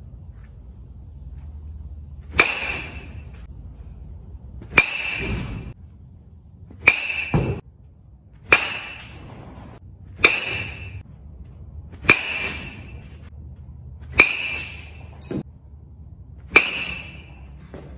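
Metal baseball bat hitting balls off a batting tee, eight sharp cracks about two seconds apart. Each crack carries a brief ring.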